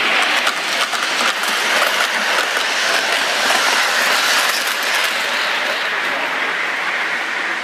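Lionel model trains rolling past on three-rail track: a steady rumble and clatter of metal wheels on the rails, loudest as a streamlined aluminum passenger car passes close by and easing off a little after about five seconds.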